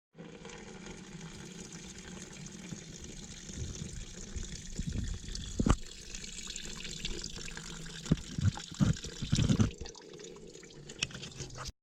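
Running water pouring and splashing, with several thumps and knocks between about five and ten seconds in.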